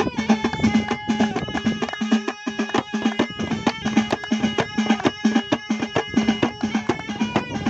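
Traditional folk music: a fast, even drum beat under held melodic tones.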